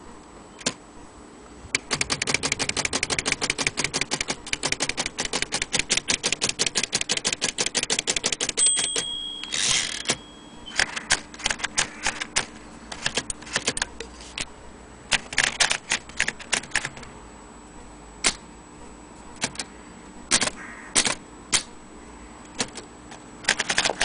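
Vintage Underwood manual typewriter being typed on: a fast, even run of keystrokes, then the margin bell rings and the carriage is returned, then slower, irregular single keystrokes.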